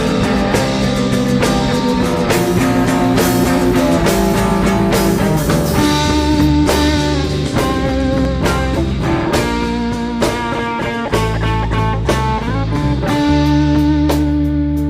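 Rock music soundtrack led by guitar, with a bluesy, psychedelic feel and a steady drum beat.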